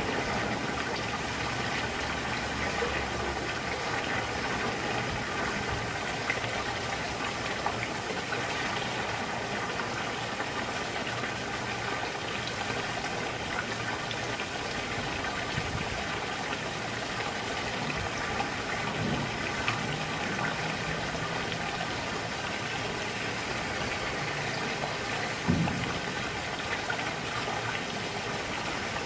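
Pool sheer-descent waterfall spout pouring a steady sheet of water into the pool, a continuous splashing rush. A brief low thump stands out once, late on.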